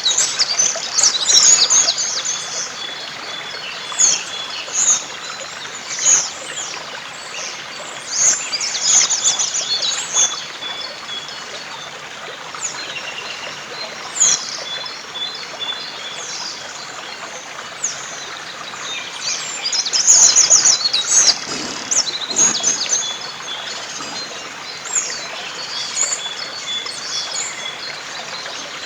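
Several songbirds singing in frequent short, high phrases and trills over the steady rush of a river.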